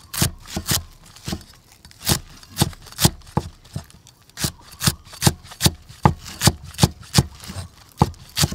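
Steel meat cleaver chopping green vegetable stalks on a thick wooden chopping block: a run of sharp knocks, about two to three a second, with a brief pause about four seconds in.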